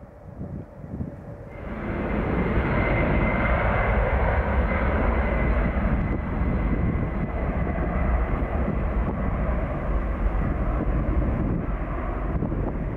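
Boeing 767-300 jet engines at takeoff thrust on the takeoff roll: a loud, steady rush with a faint high whine. It cuts in suddenly about a second and a half in, after a quieter stretch.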